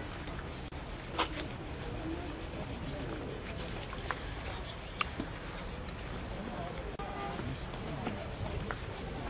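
A steady, high-pitched chorus of insects, pulsing rapidly, over a low murmur. Two sharp clicks stand out, about a second in and again about five seconds in.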